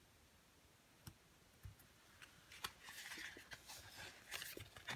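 Faint paper handling with scattered light clicks: the pages of an alphabet sticker pad flipped and letter stickers peeled off and pressed onto a notebook page.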